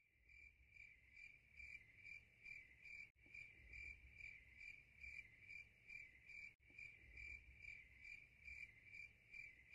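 Faint cricket chirping, an even train of short high chirps at about two to three a second.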